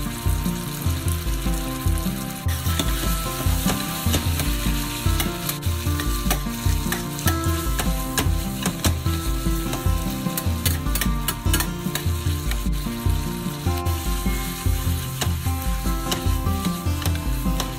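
Sizzling of miso-flavoured beef intestine (shimacho), broccolini and cabbage stir-frying in a frying pan as the food is tossed and stirred, over background music with a steady bass beat.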